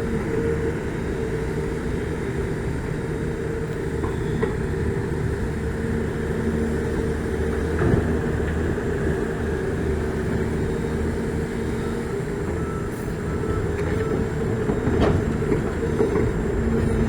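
Volvo EC480DL crawler excavator's diesel engine running steadily, with a few sharp knocks, the loudest about eight seconds in.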